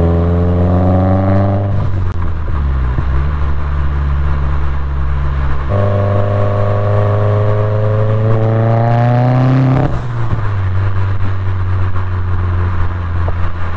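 2016 Subaru WRX's turbocharged flat-four, breathing through an Invidia dump pipe with high-flow cat and R400 turbo-back exhaust, accelerating hard. The engine note climbs through a pull and drops at a gear change about two seconds in, runs steady for a few seconds, climbs through a second pull from about six seconds, and drops again at a shift near ten seconds before settling.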